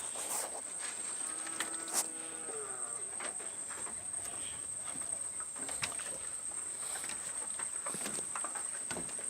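A goat bleats once, a call of about a second that falls in pitch at its end, over a steady high-pitched whine, with a few short knocks scattered through.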